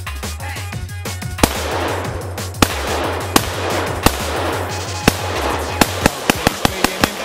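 Gunshots from a shouldered long gun, fired singly every second or so, several with a ringing echo after them, over electronic music with a heavy bass line. Near the end the bass stops and a quick run of sharp cracks follows.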